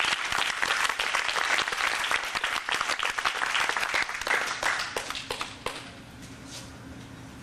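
Audience applauding, thinning out to a few scattered claps about six seconds in.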